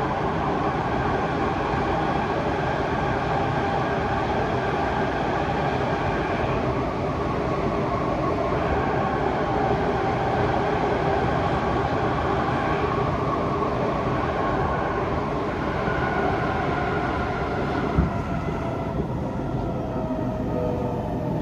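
Cabin noise of a Kawasaki Nippon Sharyo C751B metro train running: a steady rumble of wheels on track with a whine that slides in pitch, and a single sharp knock near the end.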